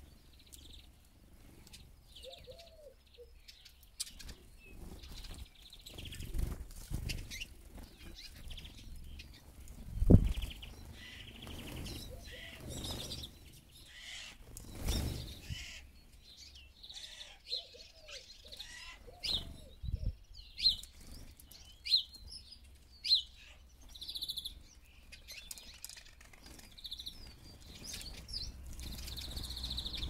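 Eurasian siskins at seed feeders: wings whirring in brief flurries as they land and take off, and short high chirping calls, with a run of sharp call notes about two-thirds of the way in.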